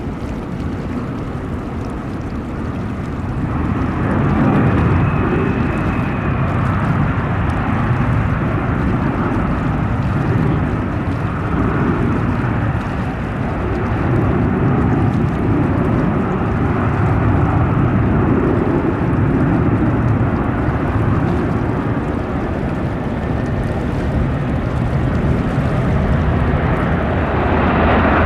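Boeing 737-800's CFM56 jet engines running during its landing, a loud steady rumble that swells about four seconds in and again near the end.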